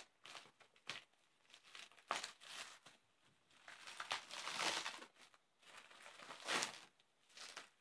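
Black plastic shipping wrap being torn and pulled open by hand, crinkling in irregular bursts. The loudest stretch lasts about a second near the middle, with another brief loud rustle later.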